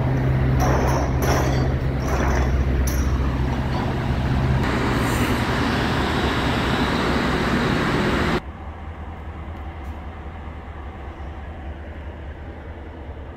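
Steady low hum of a ferry's machinery and ventilation on the enclosed vehicle deck, with a few footstep clicks on the steel deck early on. About eight seconds in it drops abruptly to a much quieter, duller hum.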